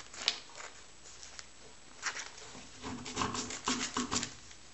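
Scissors cutting open a small plastic bag, the blades snipping and the plastic crinkling. The sound comes as a single click near the start, then a quick run of snips and rustles in the second half.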